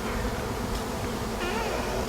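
A swarm of honey bees in flight, many bees buzzing at once in a steady, continuous hum.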